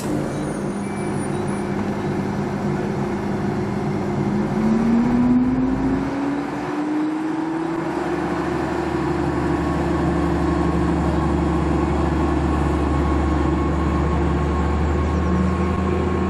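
Diesel engine of a DB VT 646 (Stadler GTW) multiple unit: its tone rises in pitch partway through, then from about six seconds in a steady low diesel rumble with a held hum as the train pulls away from the platform.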